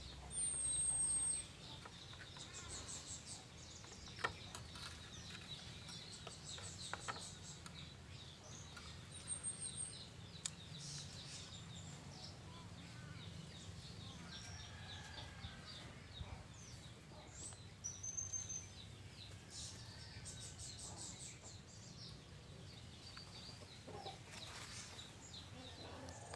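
Birds calling in the background: repeated runs of short high chirps and a few thin whistles, with a single sharp click about four seconds in.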